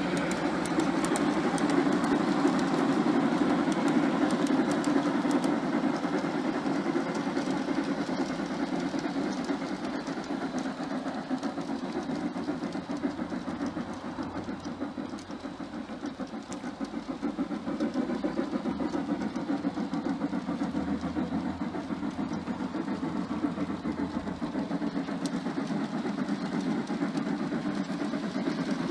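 A G-scale Bachmann 'Annie' model steam locomotive and its box cars rolling along the garden railroad track, making a steady running and rolling noise that swells and dips in loudness.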